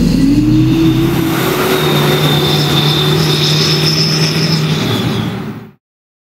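Turbo-diesel engine of an armored pickup truck revving: its pitch rises near the start and then holds steady. The sound cuts off abruptly about five and a half seconds in.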